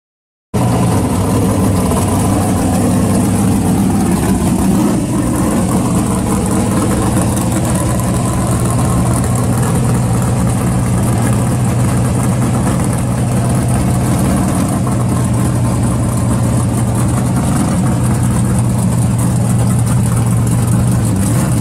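Engine of a late-1960s Ford Mustang fastback idling steadily.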